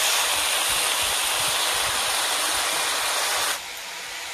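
Sliced vegetables sizzling in hot oil in a wok: a loud, steady frying hiss that cuts off suddenly about three and a half seconds in.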